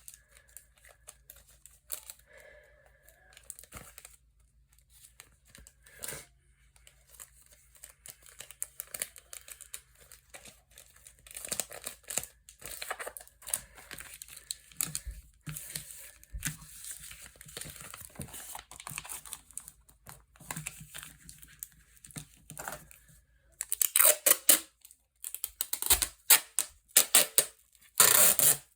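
Paper crinkling and rustling as a taped paper squishy is handled, with short tearing rips. The crackles get louder and denser near the end.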